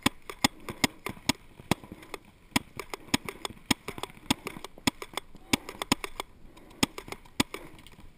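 Paintball markers firing across the field: an irregular string of sharp pops, about two or three a second.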